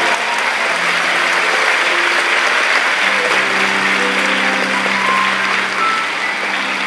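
Audience applauding steadily, over soft background music with long held notes.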